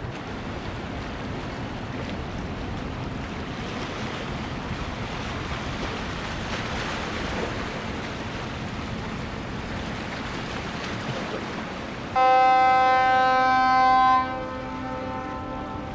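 Steady hiss of wind and water over the bay, then about twelve seconds in a boat horn sounds one loud held blast of about two seconds that starts and stops abruptly.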